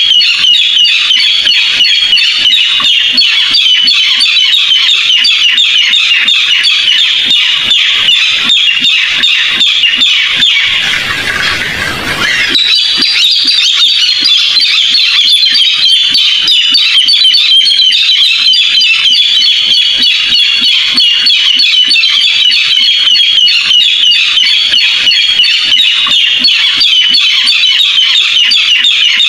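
Barred rails calling: a loud, dense run of rapid harsh notes that dips briefly about 11 seconds in, then picks up again.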